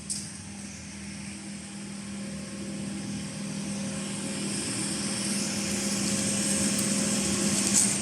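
Metal hoop-making machinery running with a steady hum and a constant low tone, growing gradually louder.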